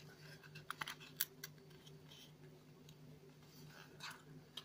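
Faint clicks and rustling of 3D puzzle kit pieces being handled and fitted together, with several small clicks about a second in, over a low steady hum.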